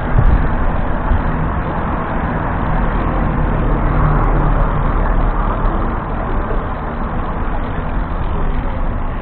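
Steady rush of wind and road noise from a camera on a moving two-wheeler on a city street, with surrounding car and bus traffic. It swells a little for a couple of seconds around the middle.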